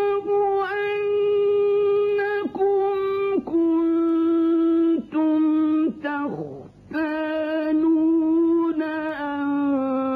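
A man's voice in melodic Quran recitation with tajweed, drawing out a series of long, steady held notes with ornamented turns in pitch. There is a short breath about six and a half seconds in.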